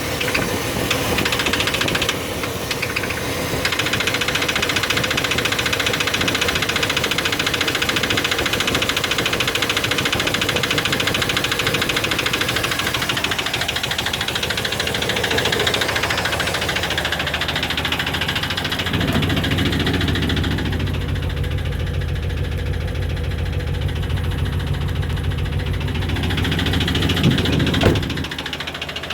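Chevy 350 (5.7 L) small-block V8 running with a steady clicking knock, a diesel-like clatter, which the owner puts down to low lubrication after the intake manifold was refitted. About two-thirds of the way through the sound turns deeper and heavier.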